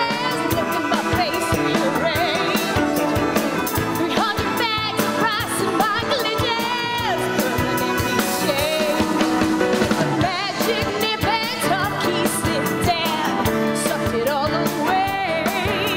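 Musical-theatre song: a band with drums plays a steady beat under a woman's singing voice holding notes with wide vibrato.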